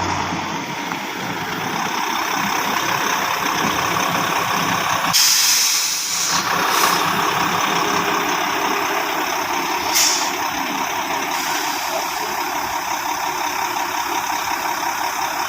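Hyundai Xcient dump truck's D6HB diesel engine running after its overhaul, with short bursts of air hiss from the truck's air system about five, seven and ten seconds in.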